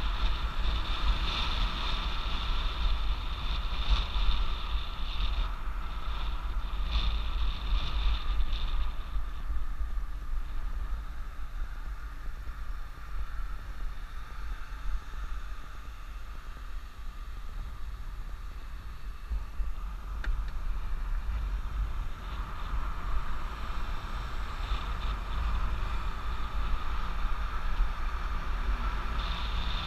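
Stromer ST2-S e-bike riding at speed: low wind rumble on the microphone with road noise, over a steady high whine from the rear hub motor. The whine fades for a stretch in the middle while the bike slows for a red light, then returns.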